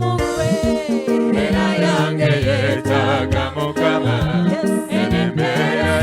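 Music: a song with a singing voice over bass notes and percussion.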